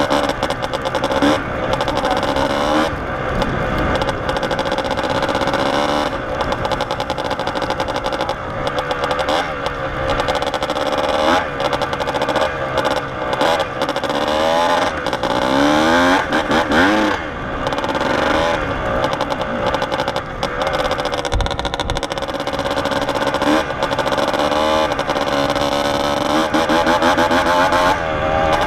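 Kawasaki KDX two-stroke dirt bike engine being ridden, revving up and falling back again and again, with several rises and drops in pitch.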